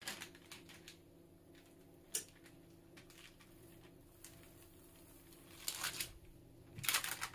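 Silicone baking mat being peeled off rolled-out dough on parchment paper: faint rustling and crinkling, louder near the end. There is one sharp click about two seconds in, over a low steady hum.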